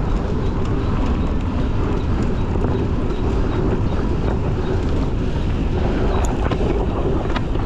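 Wind buffeting the microphone: a loud, steady, low rumbling noise, with a few faint clicks over it.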